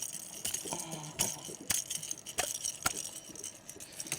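Irregular sharp knocks and clinks, about six in four seconds, as a freshly caught catfish is handled and thrashes in the boat.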